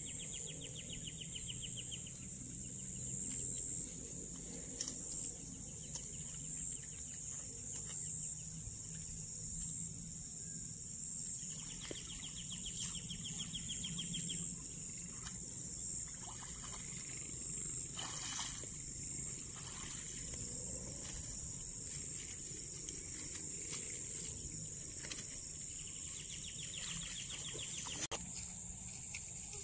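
Rural outdoor ambience: a steady high-pitched insect chorus, with a short rapid trill repeating three times about thirteen seconds apart and a couple of sharp knocks.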